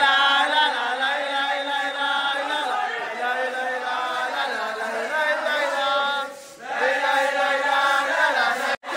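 A man chanting in long held notes through a megaphone, breaking off briefly about six seconds in and then going on.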